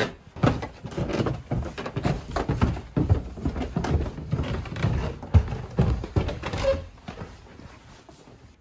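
Irregular thuds and knocks of footsteps on wooden floors and stairs, mixed with handling noise, thinning out after about seven seconds.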